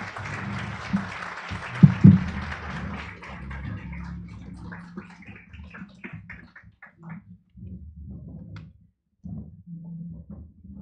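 Audience applauding. The clapping fades over about four seconds into a few scattered claps. Two loud thumps come about two seconds in, over low bumping and shuffling.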